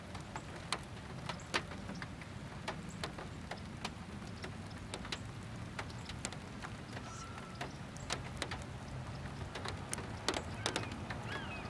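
Scattered raindrops from a passing shower, dripping and ticking irregularly on a surface, over a steady low hum.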